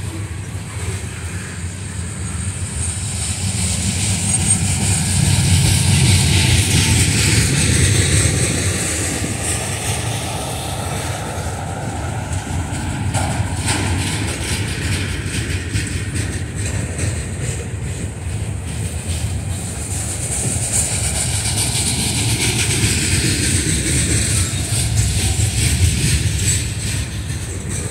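Freight train cars rolling past close by: a steady rumble of steel wheels on the rails with a high metallic hiss. It grows louder a few seconds in, eases, and swells again in the last several seconds.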